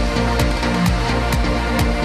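Trance music from a DJ set: a steady four-on-the-floor kick drum, a little over two beats a second, under sustained electronic synth tones.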